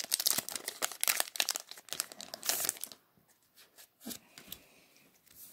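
Foil wrapper of a Pokémon booster pack crinkling as it is pulled open and the cards come out, for about three seconds; then a few faint clicks of the cards being handled.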